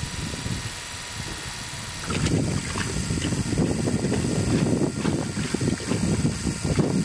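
Electric motor driving a hydraulic pump that is pumping water, running steadily with a thin whine. About two seconds in, the pump's outflow from a garden hose pours and splashes into a part-filled 5-gallon plastic bucket, louder and rougher.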